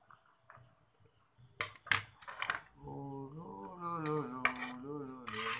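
Hard clear plastic parts clicking and clattering a few times as they are handled, then from about three seconds in a man humming a drawn-out, wavering tune. Faint cricket chirps tick steadily in the background, about three a second.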